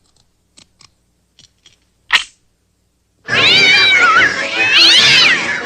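A few faint soft taps, then a short sharp sound about two seconds in. From a little past three seconds come loud cat yowls and screeches with wildly swooping pitch, as in a cartoon cat fight.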